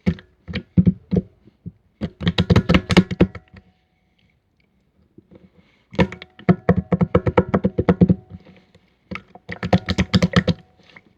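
Opaque slime being squeezed and pressed by hand, giving runs of rapid clicking pops, each run lasting a second or two, with a silent pause about four to six seconds in.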